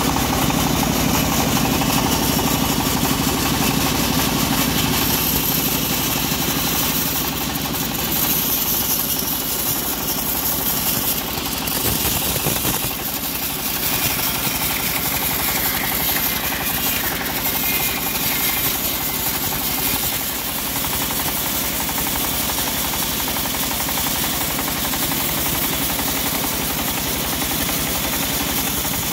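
Homemade bandsaw sawmill running steadily, its band blade cutting lengthwise through an acacia log: a steady machine hum under a constant high hiss of the cut.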